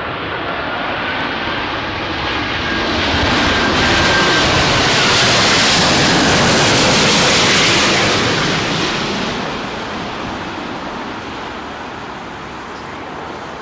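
Airbus A350-900's Rolls-Royce Trent XWB turbofans as the airliner comes in to land. The jet noise swells to its loudest about four to eight seconds in as it passes close by, then fades away. A faint thin whine is heard in the first few seconds.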